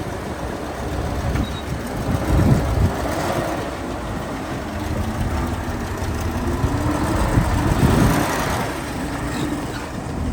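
Heavy diesel machinery of an excavator and dump truck running under load, the engine pitch rising and falling with surges about two and a half seconds in and again near eight seconds.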